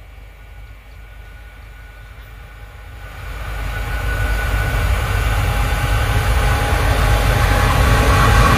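Two Transnet Class 22E dual-voltage electric locomotives approaching at the head of a freight train: a low rumble that grows steadily louder from about three seconds in, with a steady whine on top.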